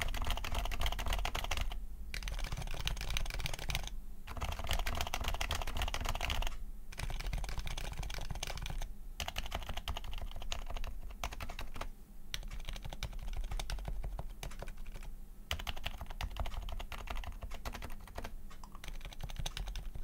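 Fast typing on HHKB Professional 2 Type-S keyboards with silenced Topre switches: a quick run of soft key strokes broken by short pauses every few seconds. It starts on the stock board and ends on one fitted with an aftermarket dampening mat underneath.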